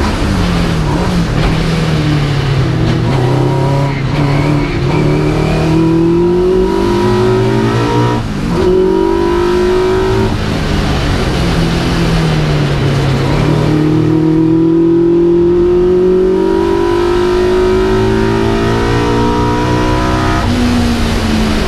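Vauxhall Firenza special saloon race car's engine heard from inside its stripped cabin, rising and falling in pitch with throttle and gears. The pitch dips sharply about eight seconds in, then climbs in a long pull through the second half and drops again near the end.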